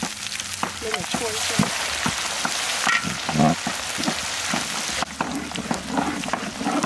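Noodles and vegetables sizzling as they are stir-fried in a hot pan, with sharp clicks of a utensil scraping and tossing them. The sizzle eases about five seconds in.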